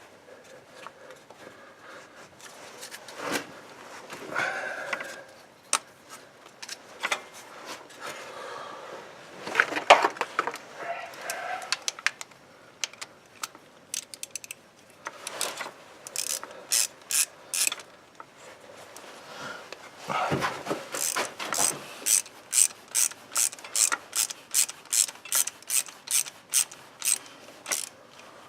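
Socket ratchet clicking as the bolt of a new camshaft position sensor is run in: scattered scrapes and knocks of tool and metal at first, then rows of sharp ratchet clicks, settling into a steady pace of about two a second in the second half.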